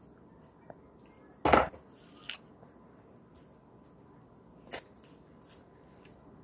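A loud knock on a plastic high-chair tray about a second and a half in, followed by a few lighter clicks and taps as plastic Play-Doh tubs and dough are handled on it.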